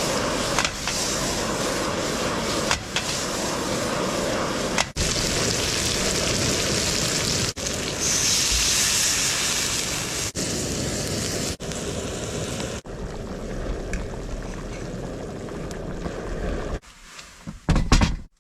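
Steady hiss of rain falling, briefly broken every second or two.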